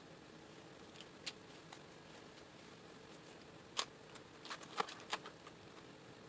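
A few light clicks, then a quick run of sharper plastic clicks and clacks about four to five seconds in: Promarker caps and barrels being handled while markers are swapped.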